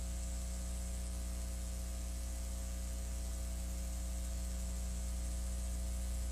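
Steady electrical mains hum with several steady overtones, over a faint even hiss.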